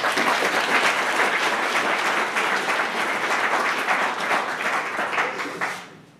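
Conference audience applauding, many hands clapping at once, starting suddenly and dying away about six seconds in.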